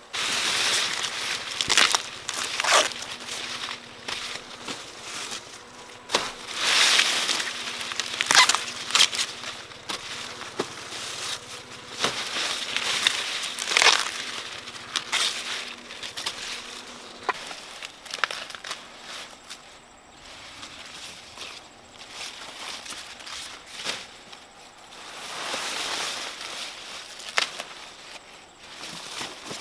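Corn plants being handled: leaves and husks rustling and crackling in irregular bursts, with a few sharp snaps.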